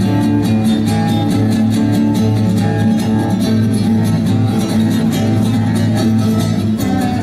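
Live indie-rock band playing an instrumental passage between sung lines: guitar over sustained bass notes, with a steady drum beat.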